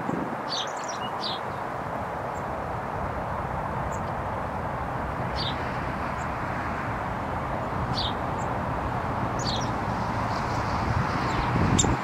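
Small songbirds calling with short, high chirps, a few at a time and scattered through, over a steady rushing background noise.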